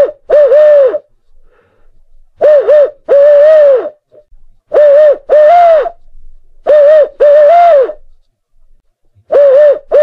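Owl hooting in a loud, evenly repeating pattern: a short double hoot followed at once by a longer hoot that rises and falls, the pair coming back about every two seconds, five times.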